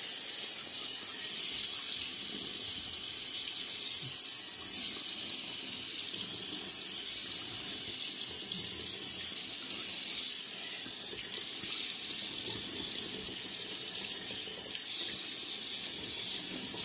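Bathroom sink tap running steadily into the basin, an even rush of water with no breaks.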